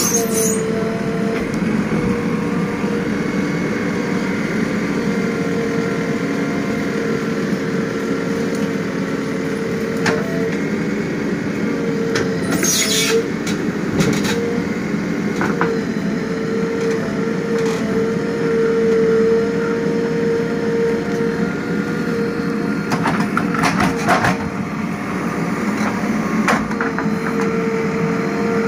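JCB 3DX backhoe loader's diesel engine running steadily as the backhoe digs a trench, with a steady whine over the engine and several clanks from the bucket and arm.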